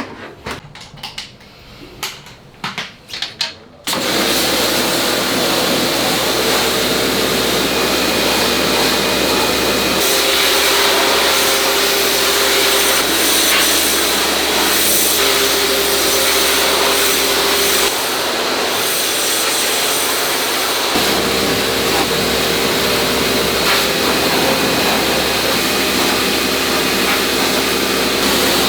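High-pressure washer running and spraying air-conditioner parts, a steady loud hiss of the water jet over the hum of the pump motor. It starts suddenly about four seconds in, after a few knocks of parts being handled.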